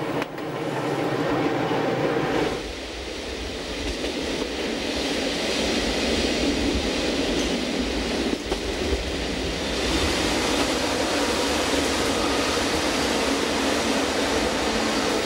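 Rhaetian Railway Bernina line electric train running along the track: a steady noise of wheels on rails and rolling carriages, which changes in tone about two and a half seconds in.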